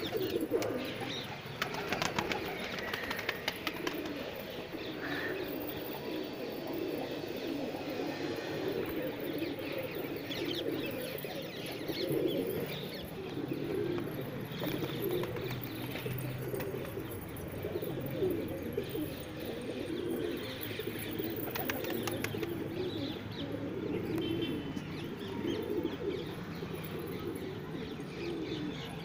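A flock of domestic pigeons cooing continuously, many low coos overlapping, with occasional short clicks among them.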